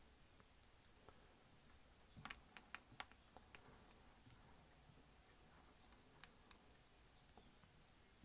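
Near silence: faint room tone with a few soft clicks about two to three seconds in and faint high chirps later on.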